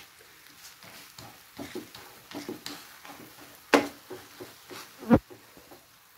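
Wooden spoon stirring and folding a thick psyllium husk halwa in a non-stick frying pan: soft, irregular scrapes and taps, with two sharper knocks of the spoon against the pan in the second half.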